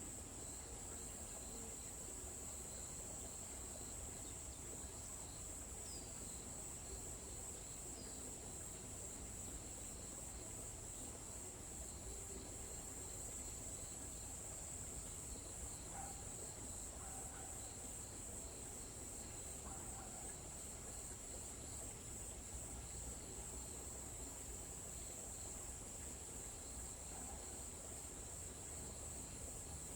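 A steady, high-pitched insect trill, like a cricket chorus, runs unbroken throughout. A few faint bird chirps sound over it.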